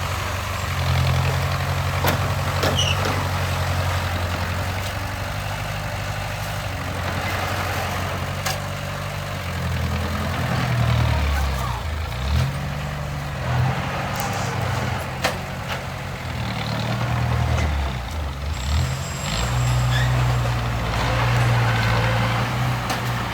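Heavy diesel engine of construction machinery running under changing load, its pitch rising and falling several times, with occasional sharp knocks and clanks.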